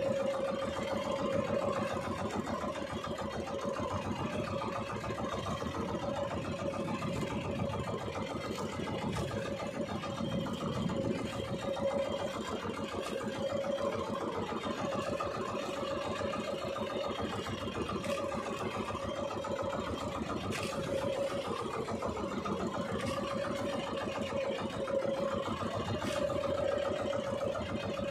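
Small fishing boat's engine idling steadily, a constant hum with no change in speed.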